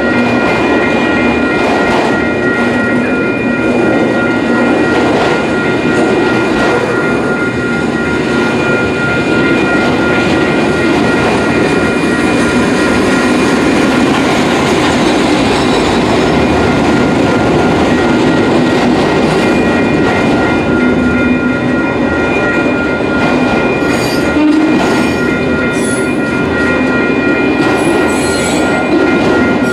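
Union Pacific freight train's autorack cars rolling steadily past, wheels rumbling and clattering over the rails. A steady high-pitched tone rings throughout, and there are a few sharper clanks near the end.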